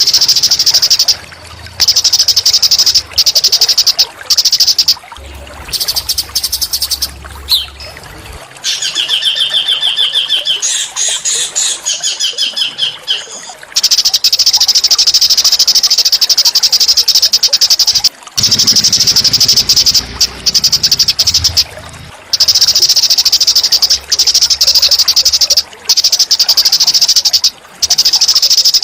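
Small songbird singing long, very rapid high buzzing trills, broken by short pauses, a rough 'tembakan' song played as a training call for magpie-robins. About a third of the way in, a lower, pulsed call with several pitches briefly takes over.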